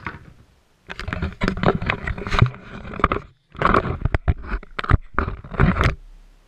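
Close handling noise: rustling and scraping with a string of sharp knocks in bursts as the camera is moved and set down on the floor, stopping about six seconds in.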